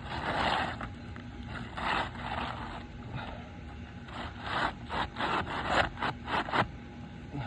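Asphalt shingles scraping against each other as a shingle is worked into place on a roof. First a longer scrape, then a few separate ones, then a quick run of short scrapes near the end.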